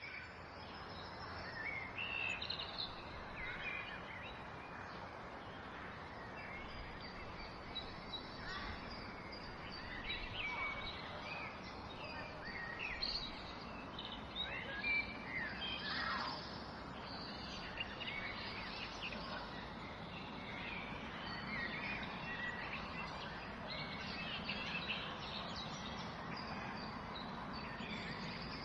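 Several birds chirping and singing, many short overlapping calls and quick rising and falling notes, over steady background noise.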